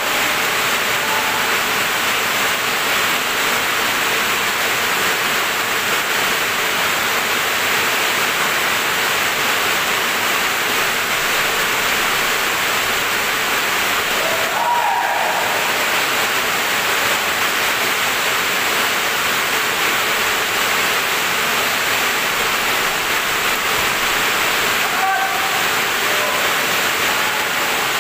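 Steady, loud rushing noise, with a brief high squeak about fifteen seconds in and another near twenty-five seconds.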